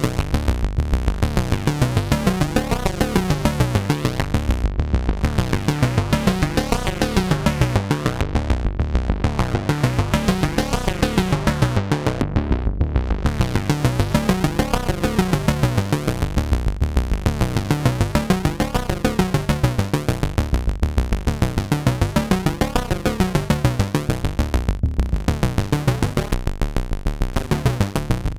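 Moog Subsequent 25 analogue synthesizer playing a sequenced pattern: a fast, steady run of short repeating bass-heavy notes, many with falling filter sweeps.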